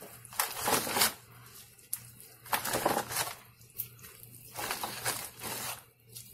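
Plastic bag of frozen corn on the cob crinkling in several short bursts as pieces are taken out and put into a pot of boiling water. A faint low hum runs underneath.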